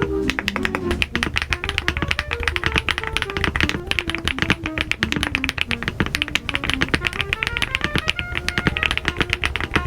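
Fast, continuous typing on a COX CF75 mechanical keyboard, with many key clicks a second, over background music that has a stepping melody.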